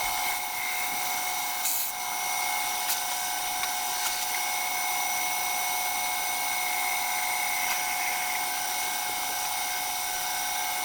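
Wood lathe running with a steady whine while abrasive paper is held to the spinning Iroko workpiece, sanding it up to 400 grit.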